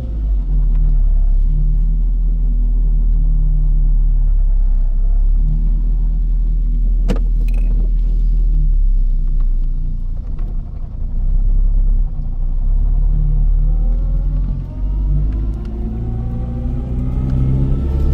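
Zastava 750's small rear-mounted four-cylinder engine running with a heavy low rumble. There is a sharp click about seven seconds in, and the engine note climbs in pitch over the last few seconds as it revs up.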